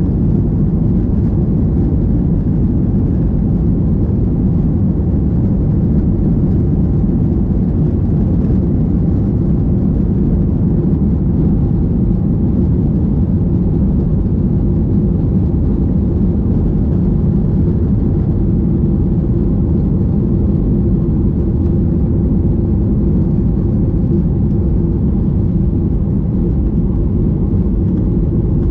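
Steady, unchanging drone of a Boeing 737-800's CFM56 jet engines and airflow heard inside the passenger cabin, a deep rumble with a faint steady hum in it.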